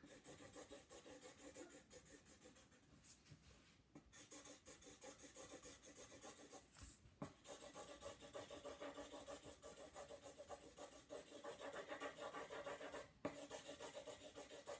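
Felt-tip Sharpie marker rubbing back and forth on paper as a drawing is coloured in: a quick, even scratching of several strokes a second, with short breaks about three and seven seconds in and again near the end.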